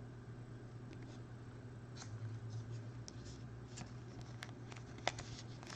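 Trading cards being handled and slid against one another: light scrapes and small clicks, the sharpest about five seconds in, over a steady low hum.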